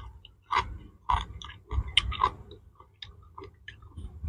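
Close-up chewing of crisp green mango slices: a string of irregular wet crunches with short gaps between bites.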